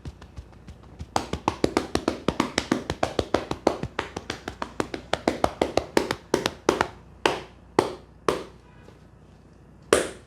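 Rapid percussive hand strikes of a head massage, about seven a second, after faint light taps at first; they slow to a few single slaps and end with one louder slap.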